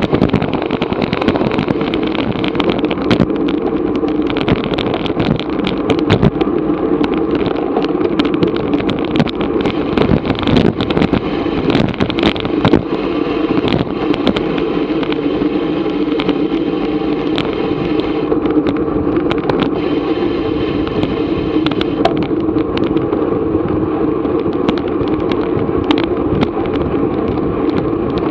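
Steady wind and road rumble from a racing bicycle on the move, with frequent sharp clicks and rattles throughout.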